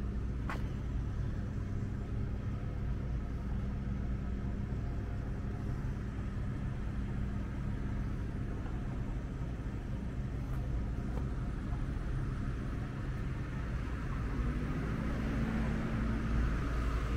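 Steady low motor hum with a constant drone and no change in pace, and a faint higher tone joining in near the end.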